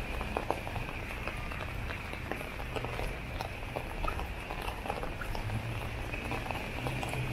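Light rain falling steadily, with many small drop ticks on an umbrella overhead. Footsteps in rubber crocs knock and splash on wet pavement.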